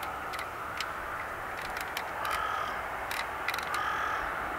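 Boeing 777-200ER's Rolls-Royce Trent jet engines running at taxi power: a steady whine and hiss. Two short bird calls cut through it, about two and a half and four seconds in, with scattered short clicks.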